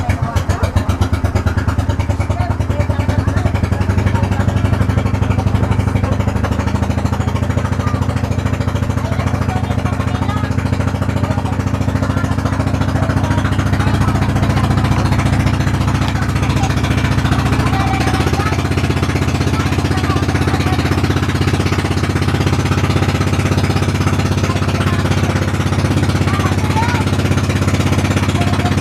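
Boat engine running steadily at constant speed, with a fast, even chugging pulse; its tone shifts slightly about eighteen seconds in.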